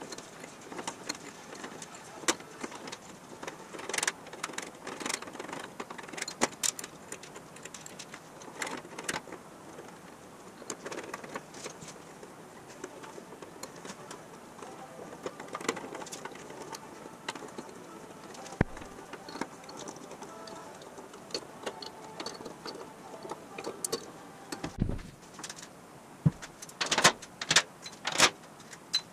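A screwdriver driving brass screws into the aluminum flange of a fuel tank's filler neck: scattered small metallic clicks and taps as the screws are turned and handled. Near the end come a few low thuds and a cluster of louder knocks as the tank is set into the frame.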